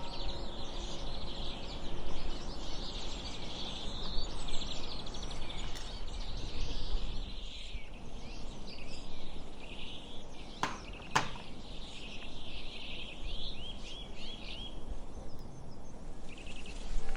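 Birds chirping over a steady low hum, with two sharp clicks about half a second apart partway through.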